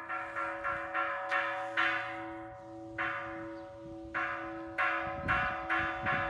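Metal bells ringing, struck again and again at uneven intervals so that the same few pitches keep sounding, with some low thuds near the end.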